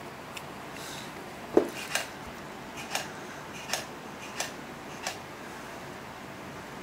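A row of light metallic clicks and taps from setting a dial test indicator against the needle bar of a Bernina 217 industrial sewing machine. There are about six, roughly two-thirds of a second apart, and the first is the loudest and duller than the rest.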